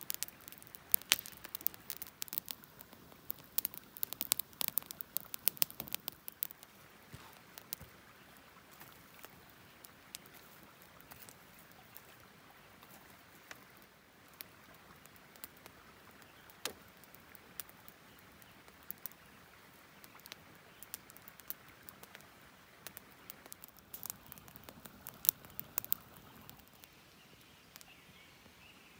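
Small campfire crackling: sharp pops and snaps of burning wood, thick in the first six seconds and again around 24–26 seconds, sparser in between.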